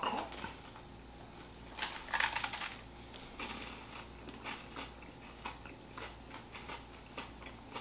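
Biting into and chewing a crisp layered wafer-and-chocolate bar: one loud crunch about two seconds in, then many small crunches of chewing.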